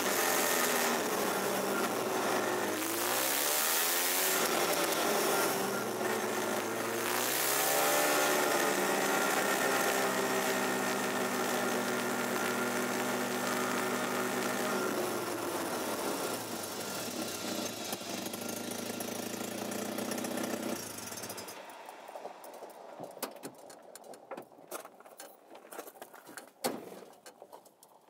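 An old car's engine and transmission running, heard from underneath. A whine rises and falls in pitch with the revs several times, holds steady, then sinks: this is the transmission noise in question. About 21 seconds in the running sound stops abruptly, leaving faint scattered clicks and crackles.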